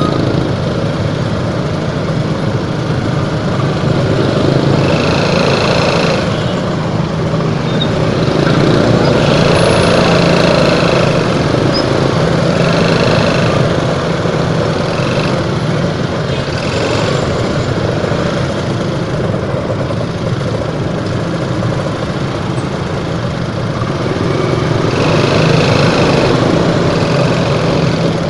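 Motorcycle engines running at low speed and idling in jammed traffic: the rider's own bike and the motorbikes and cars packed around it make a steady hum. A higher-pitched tone comes and goes several times over it.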